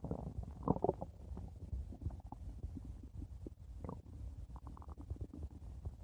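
A person's stomach growling: a low rumble with irregular bubbly gurgles, louder twice, about a second in and near the middle.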